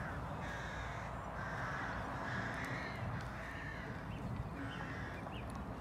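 Crows cawing repeatedly, a series of short harsh calls, over a low outdoor rumble.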